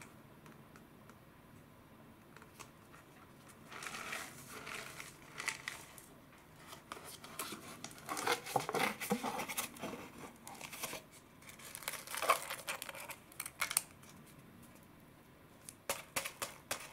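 Foil-lined paper lid of an instant udon cup being peeled back, crinkling and tearing in several bursts, then a few sharp crackles near the end.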